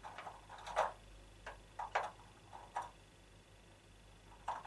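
Small wooden pieces clicking and knocking as they are picked out of a wooden tray, a string of light, irregularly spaced clicks.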